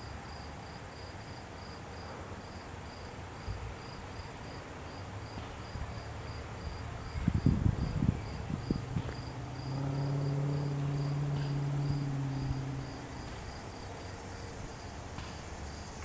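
A cricket chirping steadily, about three high chirps a second. A few loud low thumps come around the middle, then a low steady hum for about three seconds.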